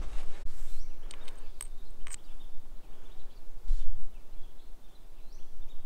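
Outdoor ambience with a steady low rumble on the microphone. A few short clicks of stones knocking together come in the first two seconds as rocks are picked over, and there are a few faint, short bird chirps.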